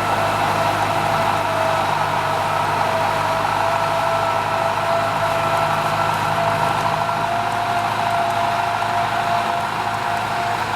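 Kubota M9540 tractor's diesel engine running steadily, a constant drone with a high whine held over it.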